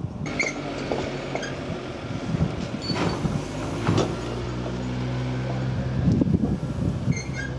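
An engine running steadily at a low, even pitch, strongest in the second half, with two sharp knocks near the middle.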